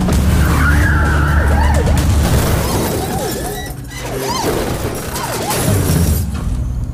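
Action-film soundtrack: music over car engines and tyres skidding, then a crash as a small car flips onto its roof and scatters debris.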